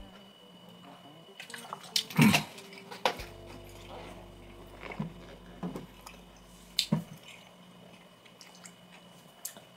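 Close-up eating sounds of noodle soup: sipping and slurping broth, with several short sharp clicks of a utensil against a bowl, the loudest about two seconds in.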